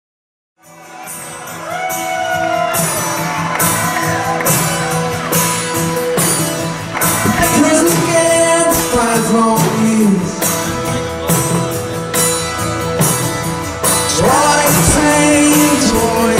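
Live song opening: singing with gliding vocal lines over a steady percussion beat, starting suddenly after about half a second of silence.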